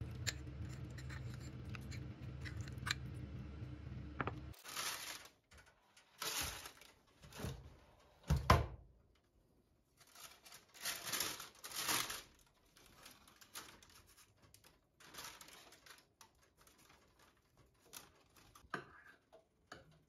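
A spoon clicks lightly in a small ceramic bowl over a steady low hum. After a cut, baking paper rustles and crinkles in several bursts as it is torn and spread over a contact grill, loudest about eight and a half seconds in.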